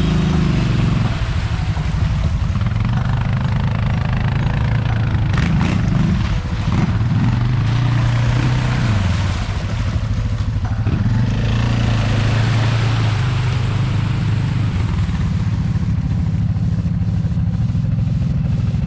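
Off-road 4x4 engine running under load, its pitch rising and falling with the throttle, with rushing noise over it at times.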